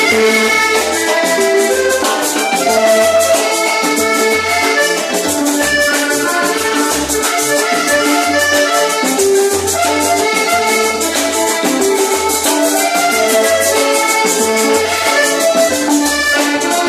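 Live band music led by an accordion, over a pulsing bass line and fast, steady rattling percussion.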